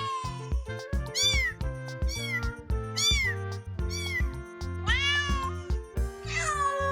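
Kittens meowing again and again in short, rising-and-falling calls, with one longer drawn-out meow near the end, over background music with a steady beat.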